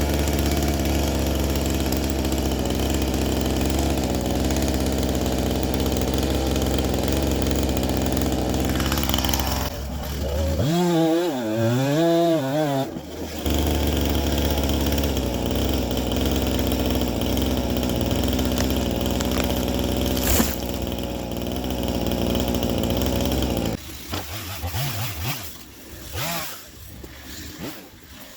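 Gasoline chainsaw running steadily, its throttle revved up and down briefly about a third of the way in, then shut off near the end, leaving only quieter scattered sounds.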